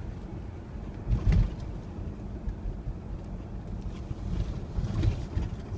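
Car driving at low speed, heard from inside the cabin: a steady low rumble of engine and road noise, with two louder thumps, one about a second in and one near the end.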